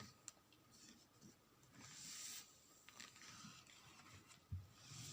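Near silence with faint handling noises: a small click at the start, a soft rustle about two seconds in, and a low thump near the end.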